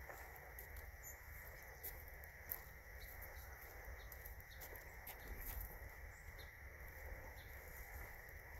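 Faint outdoor ambience: a steady high insect trill over a low rumble, with scattered soft clicks.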